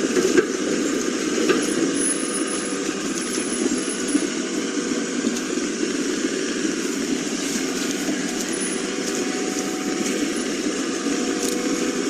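Heavy construction machinery, such as an excavator, running steadily at work, its engine and hydraulics giving a constant loud drone with a few faint clicks.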